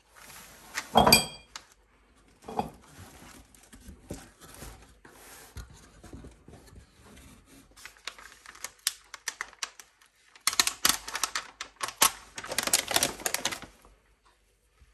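Cardboard mailer box opened with a loud knock about a second in, then tissue paper rustling and crinkling as it is folded back by hand, densest and loudest in the last few seconds before it stops.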